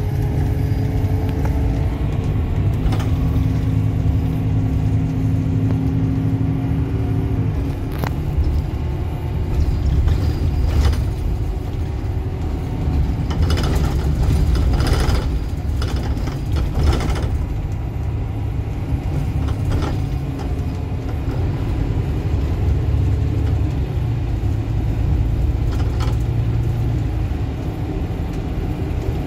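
Bus engine and drivetrain running under way, heard from inside the passenger cabin as a steady low rumble. A pitched whine is present over the first several seconds, and a cluster of sharp rattles and knocks comes about halfway through.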